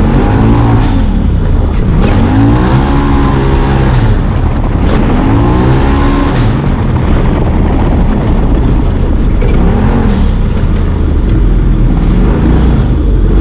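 Side-by-side UTV's engine racing on a dirt track, heard from inside the cab: the pitch climbs and drops again and again as the throttle is worked through the turns and jumps, with a few sharp knocks along the way.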